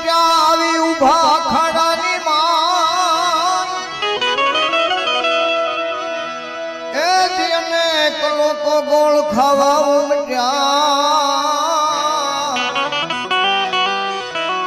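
Devotional folk bhajan music: a man's voice sings long, ornamented held lines with wavering pitch over a melodic instrumental accompaniment with a plucked-string sound, with a more purely instrumental stretch in the middle.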